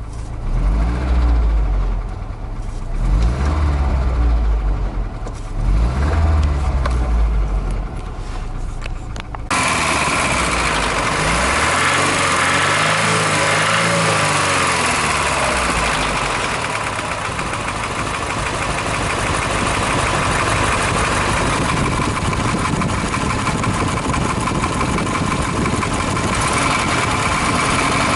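Ford Transit's 1.6 Sierra petrol engine running and being revved: three throttle blips in the first third. After an abrupt change the engine runs louder and fuller, its revs rising and falling once near the middle before settling. The knock it makes, most plainly on letting off the throttle, is suspected to be a worn connecting-rod bearing on the crankshaft, though the camshaft has not been ruled out.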